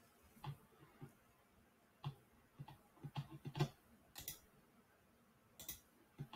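Faint, scattered sharp clicks of a computer mouse, with a quick run of several clicks about three seconds in.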